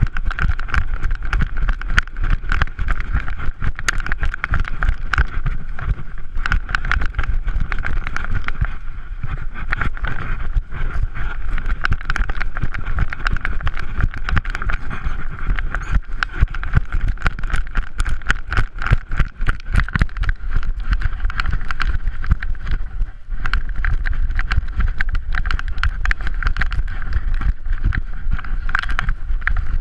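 Handling noise from a GoPro Hero 3 Black strapped to a running puppy: dense, rapid knocking and rubbing as the camera and its cardboard mount jostle against the harness and fur, over a steady low rumble.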